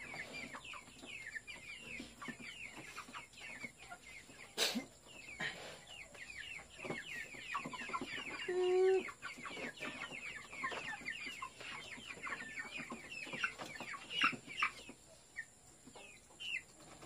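A flock of young white chickens peeping and clucking, many short, falling high-pitched cheeps one after another, with a lower call about nine seconds in. A single sharp knock sounds about four and a half seconds in.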